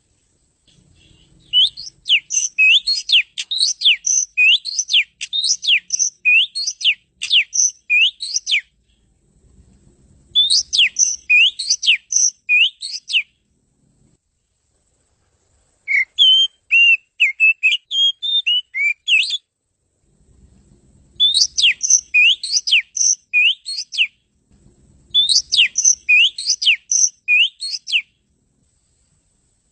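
Oriental magpie-robin (kacer) singing in phrases of a few seconds each. Each phrase is quick, repeated whistled notes, about two a second, sweeping up high, and one phrase in the middle is more varied and chattering. Silent pauses separate the phrases.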